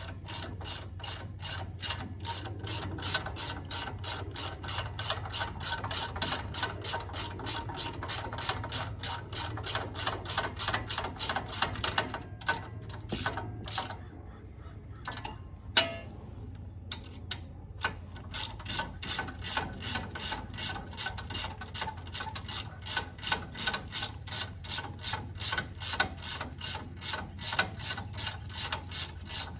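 Hand ratchet wrench clicking steadily as it is swung back and forth, tightening the nuts that draw the rear axle shaft bearing in, with two short pauses around the middle.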